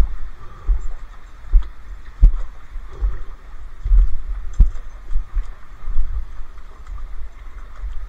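Shallow rocky stream running, a steady hiss of water over stones, broken by irregular low thumps.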